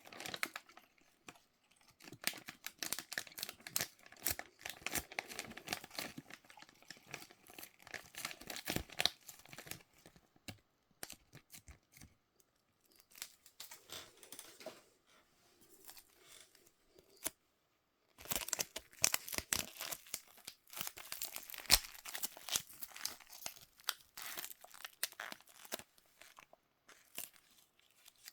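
Toy packaging being torn open and crinkled by hand: a busy run of tearing and crinkling, a quieter lull in the middle, then a second spell of tearing and crinkling.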